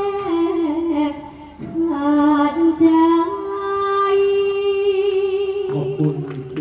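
A woman singing a slow, sweet melody with long held notes that slide gently between pitches. Near the end a lower voice joins in.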